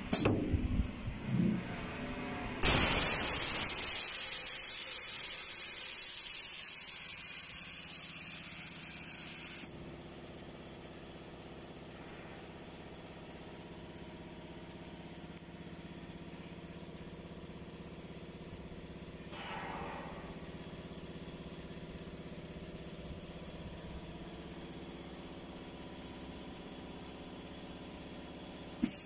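Double-head UPVC window welding machine running its pneumatic welding cycle: a few clunks, then a loud burst of compressed-air hiss that starts suddenly, fades a little and cuts off after about seven seconds. A steady low machine hum with a brief rush of noise partway through follows, and clunks come again near the end.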